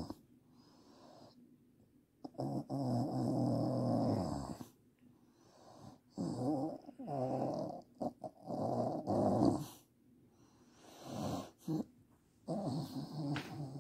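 A woman snoring in her sleep: about five snores, each one to two and a half seconds long, with short quiet gaps between them.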